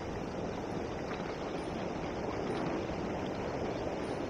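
Sea water washing and lapping against shoreline rocks, a steady wash with wind on the microphone.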